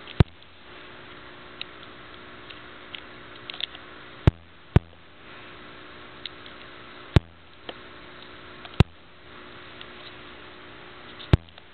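Saltwater aquarium equipment running with a steady hum and hiss, broken by about six sharp clicks.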